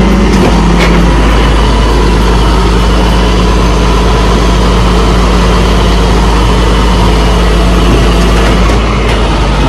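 A vehicle engine idling steadily, with a constant low rumble and a steady hum that drops away near the end.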